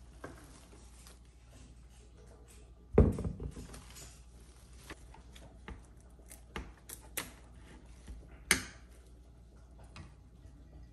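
Rose stems being trimmed with scissors and handled on a kitchen countertop: scattered snips, clicks and knocks. The loudest are a thump about three seconds in and a sharp click about eight and a half seconds in.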